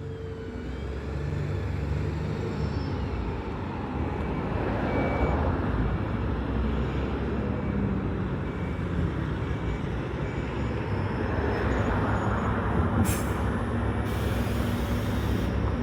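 A New Routemaster hybrid double-decker bus under way, heard from the upper deck: a steady low engine drone with faint whining tones above it. Near the end a short sharp crack is followed by a hiss of compressed air lasting about a second and a half, typical of the bus's air brakes.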